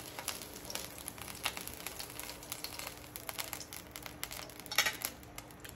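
Hot oil faintly crackling and sizzling in a non-stick frying pan just after the heat is turned off, as fried chicken longganisa is lifted out with a fork. A few louder clicks come near the end.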